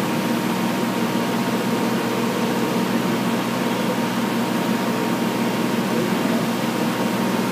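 Steady mechanical hum of a running machine, with a low drone and a thin high tone, unchanging throughout.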